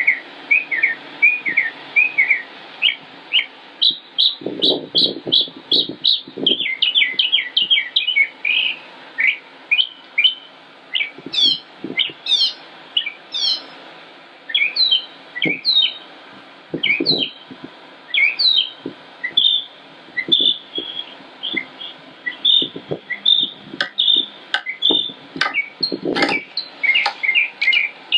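Songbird song: a long, unbroken run of quick, varied chirps and whistled notes, several a second, with a few deeper, fuller notes mixed in a few seconds in and again near the end.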